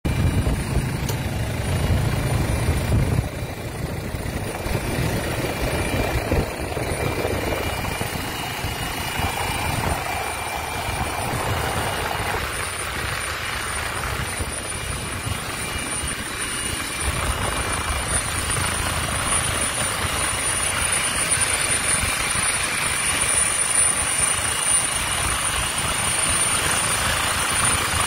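Helicopter engine and rotor noise heard from inside the cabin, a steady loud rush with a thin high whine over it, and a heavier low rumble for the first few seconds.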